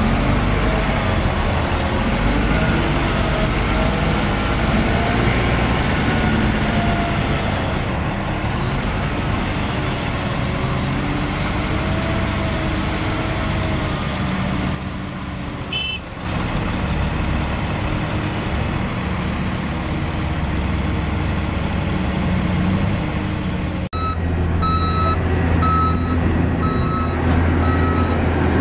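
Heavy diesel engines of a Caterpillar 740 articulated dump truck and a Caterpillar 336D excavator running steadily while the excavator loads the truck. Near the end a reversing alarm beeps repeatedly.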